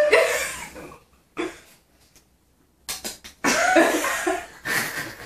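A person coughing several times in a row, harsh and breathy, from about halfway through. A hummed note fades out at the very start.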